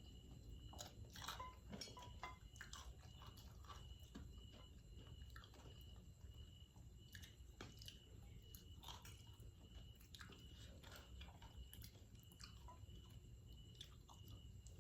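Faint close-up chewing: scattered wet mouth clicks and smacks of someone eating food.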